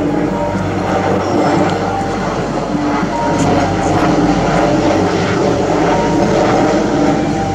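Twin-engine jet airliner flying low overhead, its engines making a loud, steady rumbling roar.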